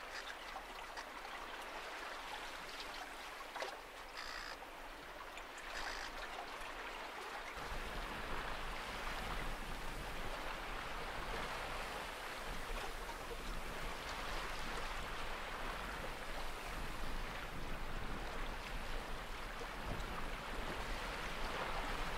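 Water rushing and splashing along the hull of a small sailing yacht under way in choppy water. A low wind rumble on the microphone joins about eight seconds in, and the sound gets slightly louder.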